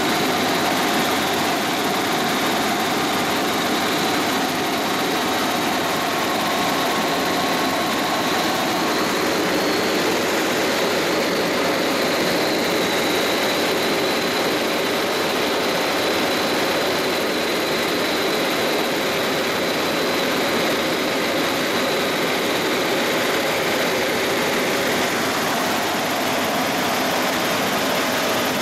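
Helicopter engine and rotor noise heard from inside the cabin in flight: a steady drone with a faint high whine running through it.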